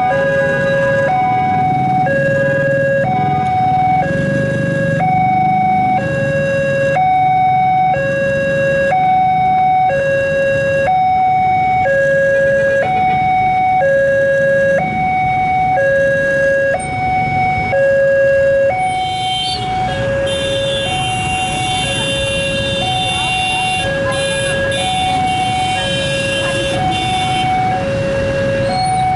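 Railway level-crossing alarm sounding its two-tone warning, a lower and a higher tone alternating about once a second while the barrier is down. About two-thirds of the way through, a rushing noise with a high whine joins it, as a KRL electric commuter train passes.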